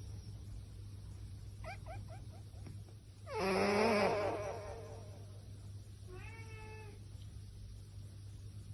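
Domestic cat vocalising: a quick run of short rising chirps, then a loud wavering meow a little past three seconds in, and a shorter meow about six seconds in, over a steady low hum.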